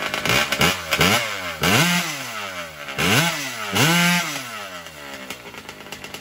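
Racing chainsaw powered by a Honda CR250 two-stroke dirt-bike engine bored and stroked to 325 cc, being blipped while it warms up: a couple of quick revs, then two longer revs held briefly before dropping back, the engine settling lower and quieter near the end.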